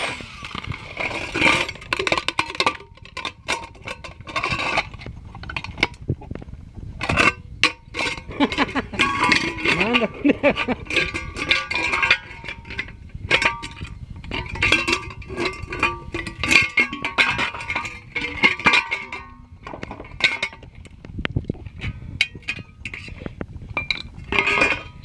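Metal parts of an electric hot plate clinking and clattering as it is taken apart by hand: many irregular sharp knocks, some with a short metallic ring.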